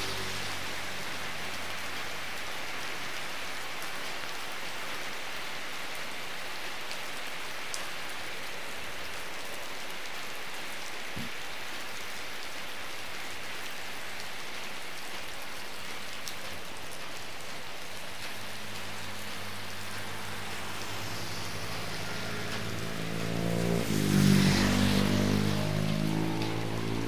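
Heavy rain pouring steadily onto a wet road and the shelter roof. Near the end a motor vehicle passes on the wet road, its engine and tyre hiss swelling to the loudest point and then fading.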